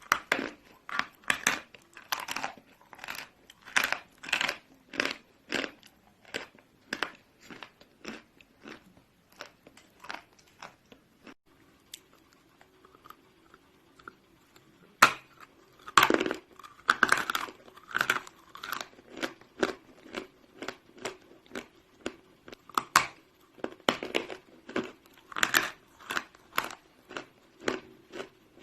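A person chewing chunks of chalk close to the microphone: a run of sharp, dry crunches about two a second. The crunching pauses briefly around the middle, then resumes with a sharp bite and more crunching.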